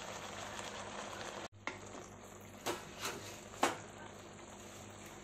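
Potatoes and fresh fenugreek leaves sizzling in tomato masala in a steel pan. A sudden break about a second and a half in, then a wooden spatula stirring the mixture, knocking against the pan three times.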